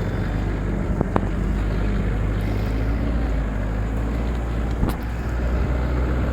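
An off-road 4x4's engine running with a steady low rumble, with two short knocks, one about a second in and one near five seconds.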